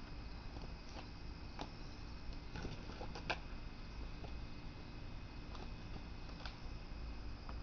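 Faint scuffs and knocks of a person climbing a tree, hands and sneakers on bark, with the sharpest knock about three seconds in, over a steady low background hiss.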